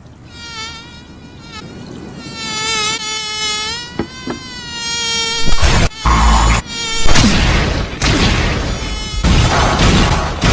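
A high, wavering, insect-like buzzing whine that grows louder, followed from about halfway through by loud, harsh, noisy blasts.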